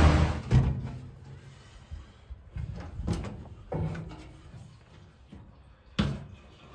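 Several separate knocks and clanks from a steel jerry can being handled and tipped against the filler of a boat gas tank, the sharpest one near the end. In the first half second the M29 Weasel's engine running drops away.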